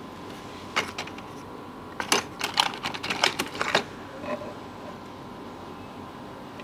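Small sharp clicks and taps of hand tools and small metal parts being handled on a repair bench. A couple come about a second in, then a quick cluster of about a dozen follows in the middle, over a faint steady hum.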